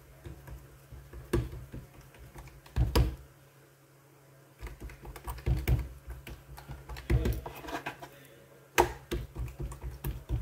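Oiled hands patting, pressing and spreading a ball of dough flat on a wooden cutting board to make a thin msemen (rgag) sheet: irregular soft pats and slaps with a few sharper taps, the sharpest near the end, over a low steady hum.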